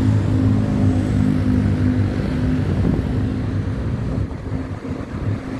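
A vehicle engine running steadily: a low hum with a held tone over a rumble, easing off slightly about four seconds in.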